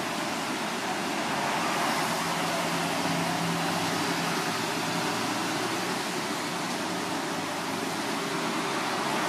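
Steady background ambience: an even hiss with a faint low hum and no distinct events, like distant street traffic.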